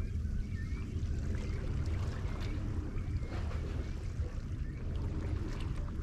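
Seawater lapping and sloshing against concrete tetrapod blocks in irregular small splashes, over a steady low rumble.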